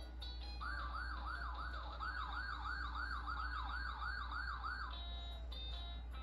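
A siren in a fast yelp, its pitch sweeping up and down about two and a half times a second for about four seconds. Short electronic beeping tones come just before and after it, over a steady low hum.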